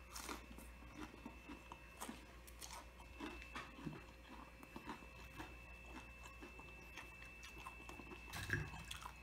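A person chewing a crispy breaded, fried calamari ring: soft, irregular crunches and mouth clicks. A faint steady high-pitched whine and low hum sit underneath, and a louder knock comes near the end.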